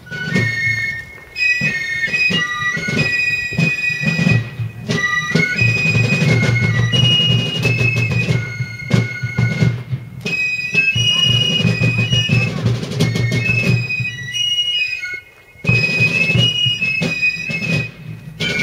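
Fifes and drums playing a tune: a shrill stepped fife melody over steady snare and bass drumming, with a short break about fifteen seconds in.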